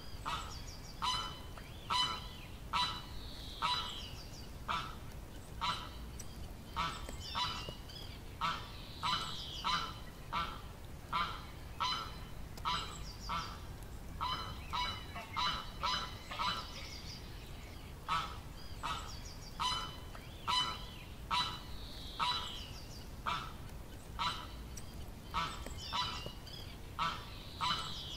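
A steady series of short, nasal honks, a little more than one a second, with higher squeaky calls mixed in.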